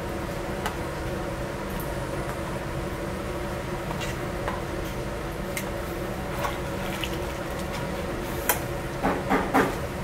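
Steady roar of a high-output commercial gas burner and kitchen ventilation under a large pot of anchovy broth. Light clinks and scrapes of a stainless ladle as doenjang is dissolved into the broth, with a few louder scrapes near the end.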